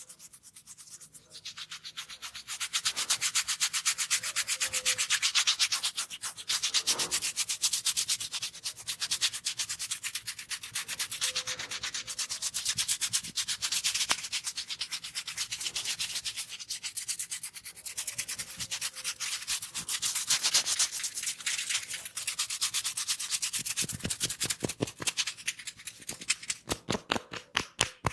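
Fast rubbing and scratching of hair and scalp during a head massage: a quick, even run of scratchy strokes starting a couple of seconds in. Near the end the strokes grow more separate and heavier.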